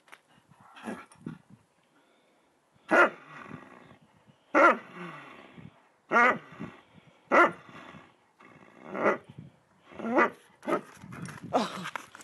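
A dog giving short growling barks while tugging on a fleece toy in play, about seven loud bursts spaced a second or more apart.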